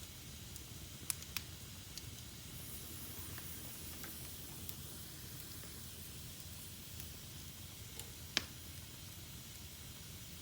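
Fire burning in a fireplace: a steady hiss and low rumble with a few sharp crackling pops, two close together about a second in and the loudest one about eight seconds in.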